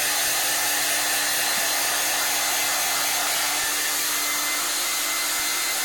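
Handheld hairdryer blowing steadily, a constant rushing air noise with a steady motor hum underneath.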